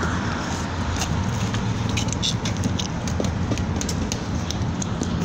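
Steady low rumble of road traffic, with many small crackling clicks from the phone being moved and handled.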